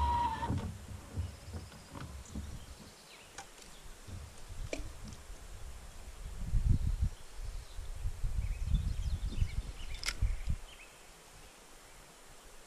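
Outdoor lake ambience: low, irregular wind rumble on the microphone that swells for a few seconds about halfway through, with a few faint bird chirps scattered through it.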